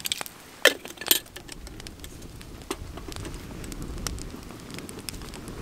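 Two sharp metal clinks from a stainless steel camping kettle about half a second apart, near the start. Then a wood fire crackling in small scattered ticks under a low wind rumble that grows.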